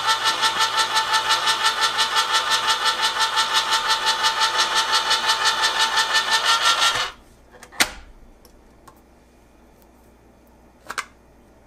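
Hamilton Beach Smooth Touch electric can opener running as it turns and cuts a pop-top can, a steady rhythmic pulsing about six or seven times a second. The motor stops abruptly about seven seconds in, followed by a sharp click about a second later and a short double click near the end.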